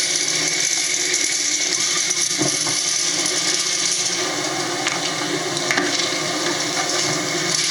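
Metal shopping cart rattling steadily as it is pushed over pavement, with a couple of sharp knocks from the cart jolting.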